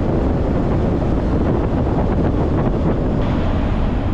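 Wind buffeting the microphone of a camera riding on a moving vehicle: a loud, steady rush of noise.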